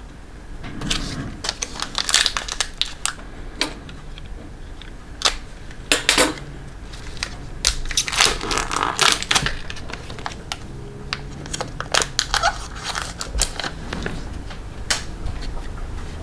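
Hockey trading cards and their pack wrappers being handled: scattered light clicks and taps of cards sliding against one another, with a spell of rustling about halfway through.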